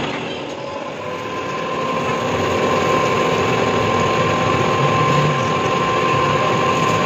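Metal lathe running while a small crankshaft's crank pin is being turned, a steady machine drone with a thin, steady high whine of the cut that sets in about a second in.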